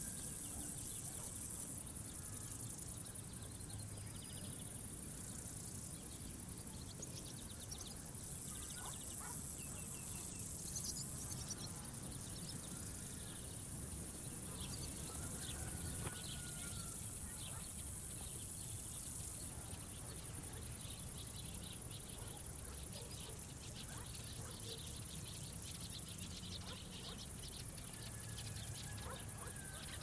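Field insects stridulating: a very high-pitched, hissing buzz that comes in three bouts, one at the start, one about a third of the way in, and one that swells up gradually around the middle. Between the bouts a faint bed of outdoor ambience continues.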